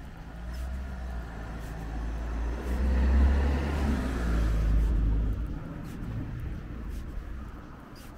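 A car driving past: engine rumble and tyre noise grow louder to a peak about three to five seconds in, then fade away.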